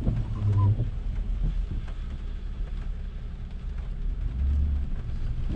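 Low, steady rumble of a car heard from inside the cabin, with a brief pitched sound about half a second in.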